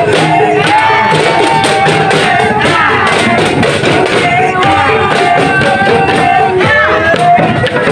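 A song with a singing voice, played loudly, with a group of marchers beating small handheld drums with sticks in a steady rhythm along with it.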